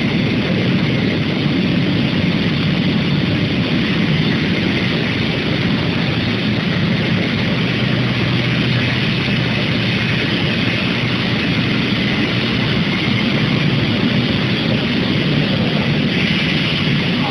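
Piston rod induction heating furnace line running: a steady industrial hum under a constant hiss, unchanging throughout.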